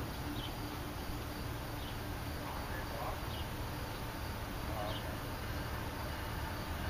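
Outdoor background noise: a steady low rumble with faint, short high chirps every second or so.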